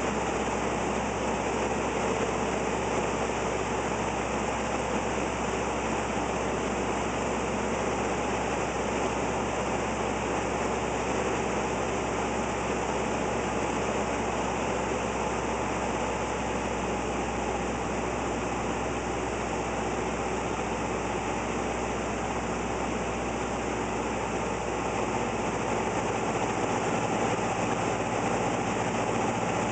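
Light piston aircraft's engine and propeller droning steadily, heard inside the cockpit on final approach, with a slight change in the low hum near the end.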